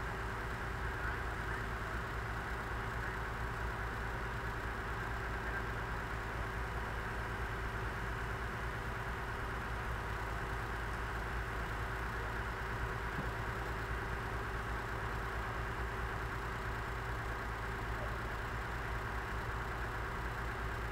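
Heavy equipment engine idling steadily, a low even hum that does not change.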